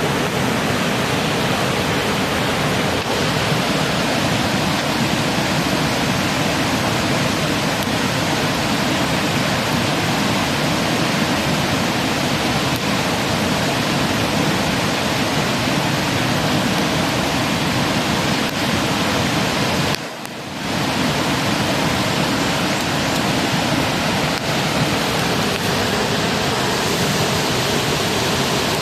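Steady rushing of running water, even and unbroken, with a brief dip in level about twenty seconds in.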